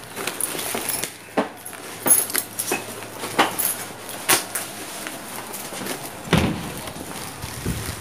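Keys jingling and the clicks and knocks of a building's entrance door being opened and passed through on foot, with two low thuds near the end.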